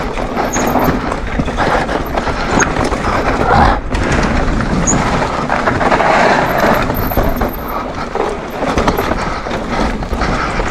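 Mountain bike descending a dirt downhill trail at speed: knobby tyres rumbling over roots and dirt, chain and frame rattling, wind buffeting the camera microphone. About halfway through the tyres clatter over a wooden slatted ramp.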